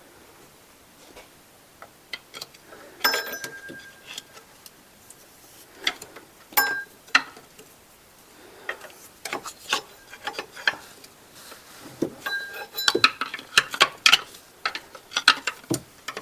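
Scattered metallic clicks, knocks and clinks, a few ringing briefly, as a power steering pump is wiggled and pried at to work it loose. They are sparse at first and come thicker in the second half.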